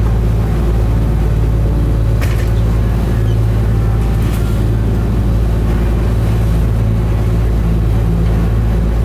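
Lobster boat's inboard engine running steadily under way, with an even, low drone.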